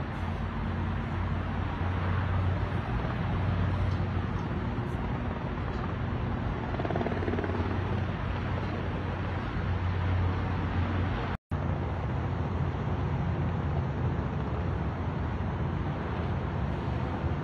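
Helicopter droning steadily at a distance, a low hum under a steady hiss of background noise; the sound drops out for a split second a little past the middle.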